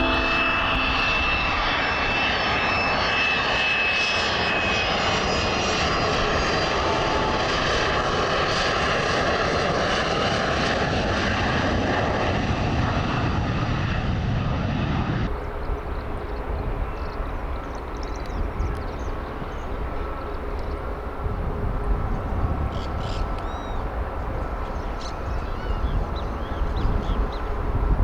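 Jet airliner passing low overhead: a loud, steady rush of engine noise with a high turbine whine, which cuts off suddenly about halfway through. After that, a quieter steady hum remains, with a few faint chirps near the end.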